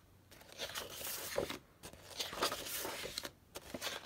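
Sheets of patterned scrapbook paper rustling and sliding against each other as they are lifted and flipped over by hand, in a few separate bouts of crisp rustling with a short pause between them.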